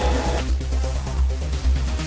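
Background music with electronic instruments, a steady deep bass line and a regular beat.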